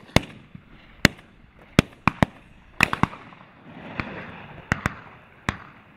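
Shotguns firing at passing ducks: about eleven sharp shots in six seconds from several guns, irregularly spaced, some in quick doubles, some louder and some fainter.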